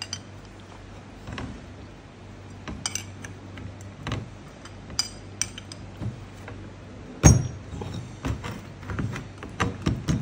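Small steel open-end spanner clinking against the nuts and face of a steel chain sprocket as the nuts are loosened: irregular metallic clicks and taps, the loudest about seven seconds in.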